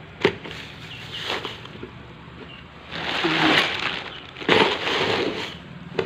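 Rummaging in a drawer of spare parts: plastic bags rustling and small items being handled, in two noisy stretches in the second half, after a single faint click near the start.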